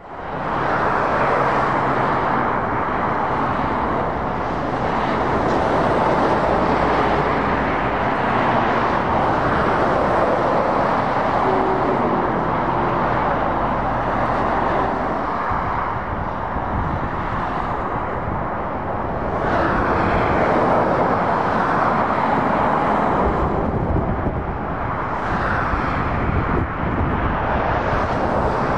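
Road traffic on a dual carriageway: continuous tyre noise of cars and articulated lorries passing, swelling and easing as each vehicle goes by, under the low engine drone of the heavy trucks. The sound fades in at the start.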